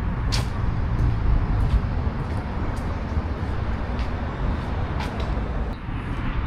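Steady low rumble of vehicle or traffic noise, with a few scattered light clicks.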